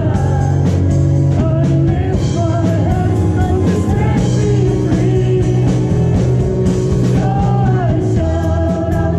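A live worship band: several voices singing together over keyboard and guitar, with a steady low bass and a regular beat.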